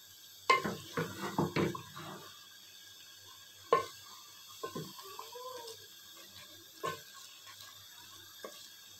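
Wooden spoon stirring chicken and green bell peppers in a metal pot, knocking and scraping against the pot: a quick run of knocks in the first two seconds, then single knocks every second or two.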